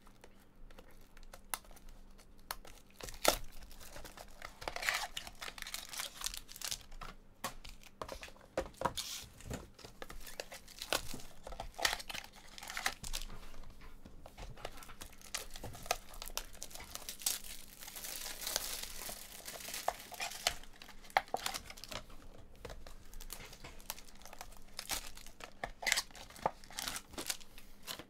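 Plastic and foil trading-card packaging crinkling and tearing by hand as a Bowman Sterling baseball box and its wrapped mini boxes and foil packs are opened: irregular crackles and rustles, with a longer stretch of crinkling a little past halfway.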